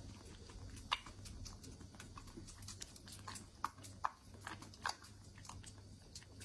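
Kittens eating: a fast run of small chewing and smacking clicks, with a few sharper clicks standing out.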